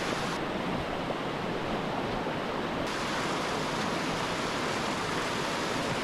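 Steady rushing of whitewater pouring through a river rapid. The highest part of the hiss dulls from about half a second in until nearly three seconds in.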